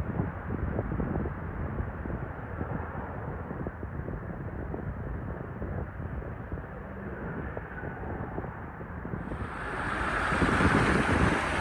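Wind buffeting the microphone over vehicle and water noise, growing into a louder rush of churned floodwater near the end.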